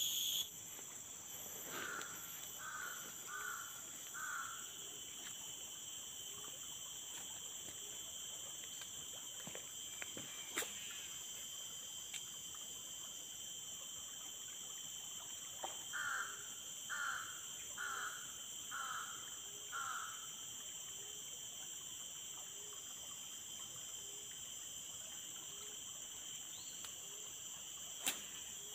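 A bird calling in two series of short repeated notes, four about two seconds in and five about sixteen seconds in, over a steady high drone of insects. Two brief sharp clicks come near the middle and near the end.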